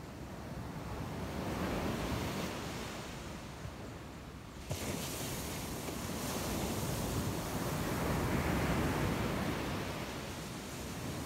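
Sea surf breaking and washing up a sandy beach, swelling twice.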